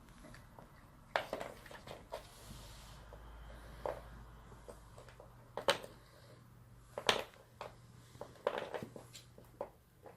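Cats playing with catnip sticks: irregular short knocks, scuffs and rustles, roughly one every second or two, over a faint low hum.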